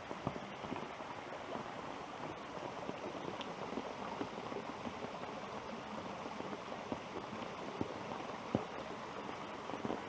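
Steady rain falling on woodland foliage and a wet path, an even hiss with scattered sharper drips, the loudest near the end, together with rainwater running down a stone-lined channel that is usually dry.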